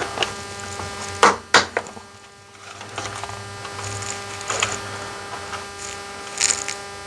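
Plastic heat-shrink tubing assortment box and tubing being handled: two sharp plastic clicks a little over a second in, then lighter clicks and rustles, over a steady electrical hum.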